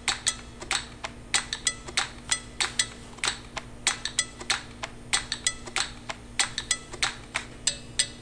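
Intro music on a steady rhythm of short, bright struck or plucked notes, several a second, over a low steady hum.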